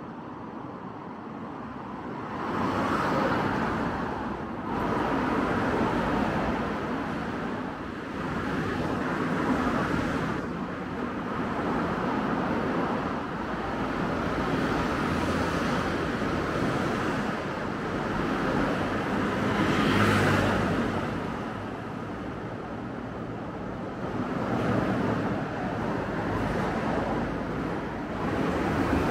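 Road traffic on a city street: cars passing one after another, each swelling and fading, with the loudest pass about two-thirds of the way through.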